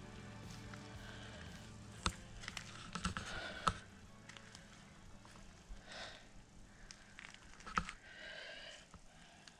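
Quiet handling noises with a few sharp clicks, the loudest about two seconds in, just before four seconds and near eight seconds. Background music fades out at the start.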